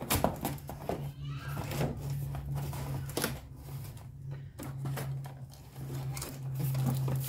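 Scattered knocks and clicks of objects being handled and set in place, over a steady low hum.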